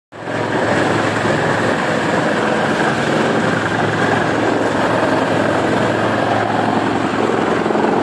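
Yulong TR-A80130 wood chipper running: a steady, loud mechanical drone with a constant low hum.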